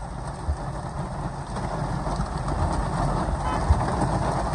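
Heavy rain drumming on a car's roof and windscreen, heard from inside the cabin, growing slightly louder.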